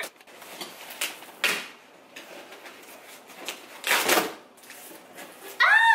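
Large cardboard box being torn open by hand: scraping and ripping of the cardboard flap, loudest about four seconds in. Near the end comes a short, loud, high-pitched squeal that rises and levels off.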